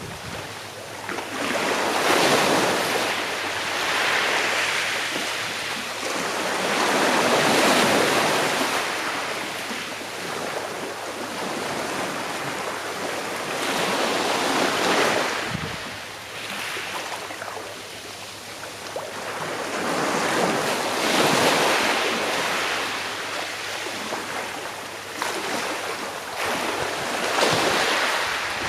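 Sea waves washing onto a shore, each swell of surf rising and falling away over a few seconds, about five times.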